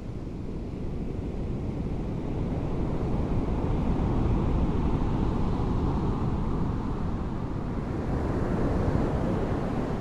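Small ocean waves breaking and washing up onto a sandy beach, as a steady surf noise that swells over the first few seconds and again near the end.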